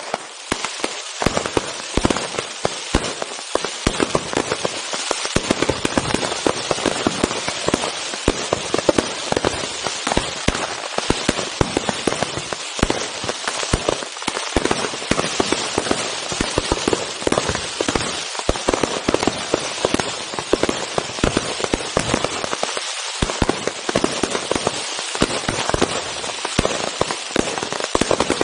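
Close-range fireworks display: a dense, continuous crackling and popping from many crackling-star shells, with frequent louder bangs of bursting shells mixed in.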